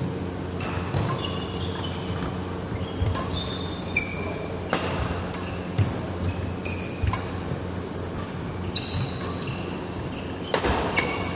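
Badminton doubles rally: sharp racket strikes on the shuttlecock every second or two, with short high squeaks of shoes on the court mat, over a steady low hum in a large hall.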